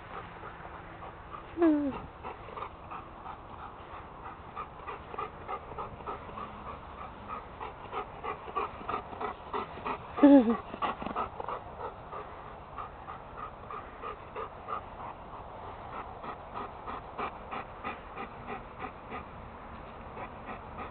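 Dog panting in a steady rhythm of about three breaths a second, with two short falling whines, one about two seconds in and a louder one about ten seconds in.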